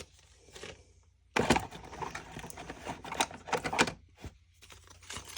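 Packaging being opened and handled by hand: a dense run of quick clicks and rustles starting about a second and a half in and easing off after about four seconds.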